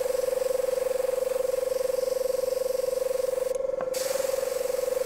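Airbrush spraying paint: a steady hiss of air through the airbrush that stops for a moment about three and a half seconds in and starts again. Under it, a small air compressor runs with a steady buzz.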